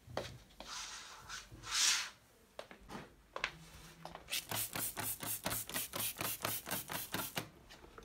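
A net curtain is slid aside with two rubbing swishes. Then a trigger spray bottle is squeezed rapidly, about five or six quick sprays a second for some three seconds, misting glass cleaner onto the window.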